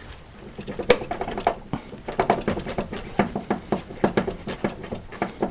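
Long steel through-bolt being worked back and forth in a Hyundai Accent's engine mount: a rapid, irregular run of metallic clicks and knocks, some ringing briefly.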